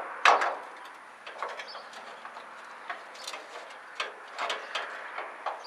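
Hand tools working on a rusted bumper bolt under an old truck: one sharp metallic knock just after the start, then scattered light clicks and knocks.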